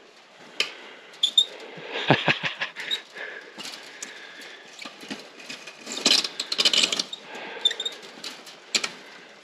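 A wire fence and its wooden posts being climbed: irregular knocks, creaks and rattles of the wires and posts as boots scrape and step on the post, with squeaks. A cluster of deeper knocks comes about two seconds in and a denser rattling run around six to seven seconds in.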